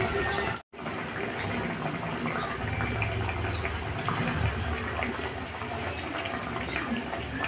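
Hot oil sizzling and bubbling around two breaded chicken katsu cutlets deep-frying in a pan: a steady crackling hiss. It cuts out briefly less than a second in.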